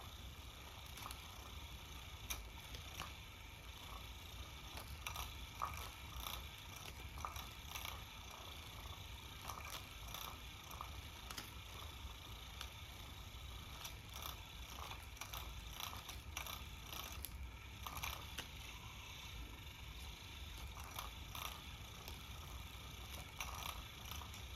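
Faint whirr of a battery-powered automatic cat toy's small motor swinging its feather wand, with scattered light clicks and taps.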